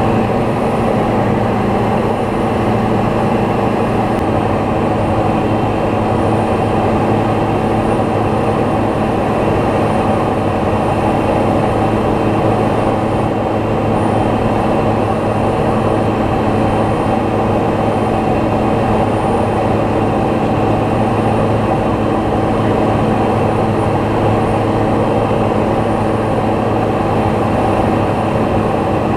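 Small propeller aircraft's piston engine running steadily in cruise, a constant loud drone with several steady tones.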